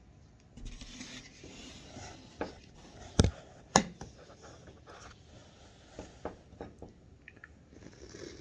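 Packaging and containers handled close to the microphone: rustling and rubbing, two sharp knocks a little past three seconds in about half a second apart, and a few lighter taps around six to seven seconds.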